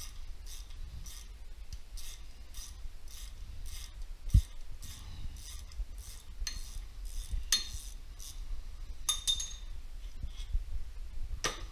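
Socket ratchet worked back and forth in even strokes, a short rasping click-run about twice a second, loosening the long through bolt on the engine's bottom mount. A dull knock about four seconds in, and a few sharper metal clinks later on.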